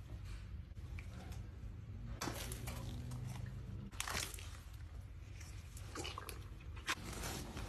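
Scattered crunching and crackling, with the sharpest crunches about two, four and seven seconds in, over a steady low hum.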